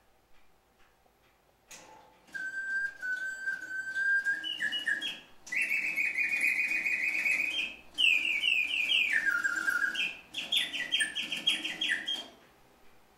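Singing-bird automaton in an antique clock: its bellows-driven whistle plays a mechanical birdsong of rapid warbling trills and falling phrases. It starts with a click about two seconds in, runs in four phrases with short breaks, and stops near the end. The clock ticks faintly at the start.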